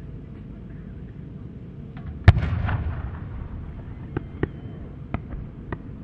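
Japanese aerial firework shell with small flowers along its rising tail: a single deep boom with a rolling echo about two seconds in, then a scattering of sharp pops as the small flowers burst on the way up.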